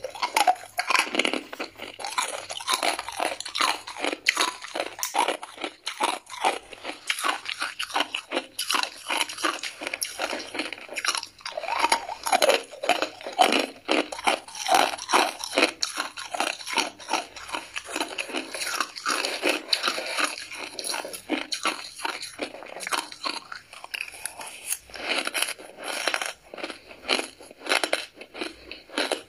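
A person biting and chewing ice close to a clip-on microphone: rapid, dense crunching that goes on almost without a break.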